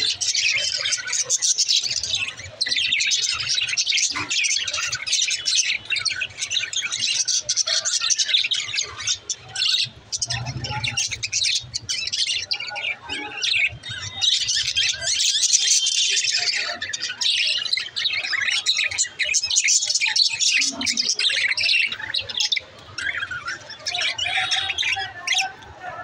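A flock of budgerigars chattering, a dense, continuous mass of high chirps and warbles.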